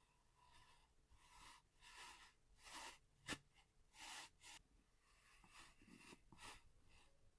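Kinetic sand being cut: a series of faint, soft scraping strokes, with one sharp click a little before halfway.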